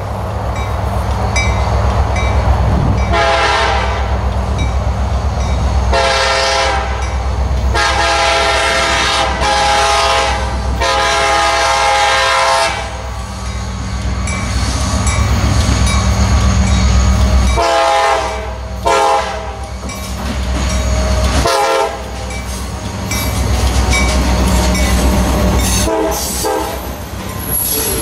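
CSX GP40-2 diesel locomotive's Nathan K5LA five-chime air horn sounded as a horn show: repeated blasts of varying length, several in quick succession in the first half, over the steady low rumble of the approaching train. Near the end the freight cars roll past, their wheels clicking over the rail joints.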